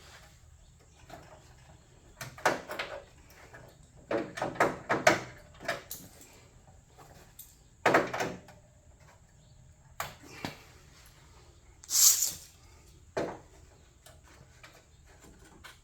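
Irregular knocks, clunks and scrapes of a sheet-metal hood patch panel being handled and worked into place, some with a short ringing tail. A brief hiss about twelve seconds in is the loudest moment.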